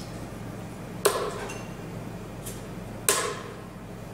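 Steel-tip darts striking a bristle dartboard: two sharp knocks about two seconds apart, each with a short ring.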